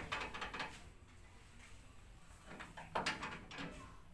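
Short clicks and knocks of metal parts and hand tools being handled during a repair on a tricycle sidecar: a cluster right at the start and another about three seconds in.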